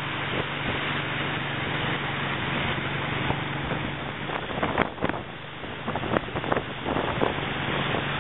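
Tow boat's engine running under way, a steady low hum under the rush of the churning wake and wind on the microphone. In the second half, a run of sharp crackles and thumps sounds over the water noise.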